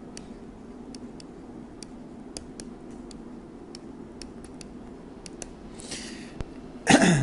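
Stylus ticking and scratching on a graphics tablet during handwriting: irregular sharp ticks, two or three a second. Near the end, a breath and then a short loud vocal sound with a falling pitch.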